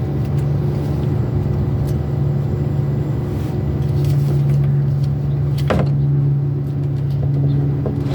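A steady low mechanical drone with a few faint ticks, and a single sharp click a little before six seconds in.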